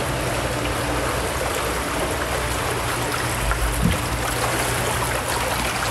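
Steady rush of water with a faint low hum, from an indoor flume boat ride moving along its water channel. A brief low thud about two-thirds of the way through.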